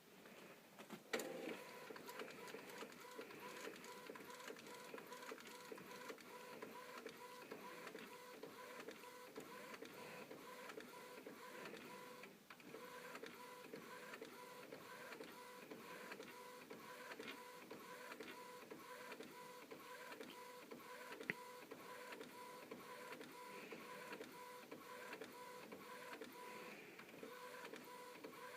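Epson Stylus Photo R800 inkjet printer running a print job, its mechanism whirring with a steady, regularly pulsing tone, after a sharp click about a second in.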